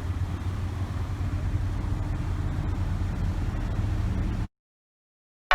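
Toyota GR Supra engine idling steadily just after start-up, then cut off abruptly about four and a half seconds in.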